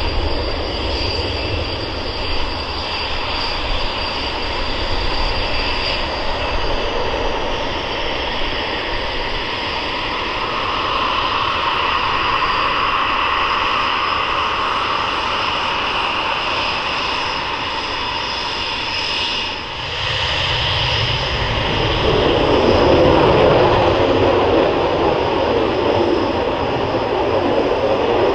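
Panavia Tornado IDS's twin RB199 turbofan engines running at taxi power: a steady jet rumble with a high turbine whine. About twenty seconds in it dips briefly, then grows louder and deeper as the jet's tail and exhausts swing toward the listener.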